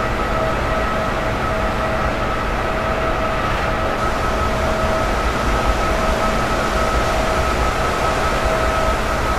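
Steady wind and rough-sea noise with a low rumble, under a constant whine that holds one pitch throughout, like running machinery.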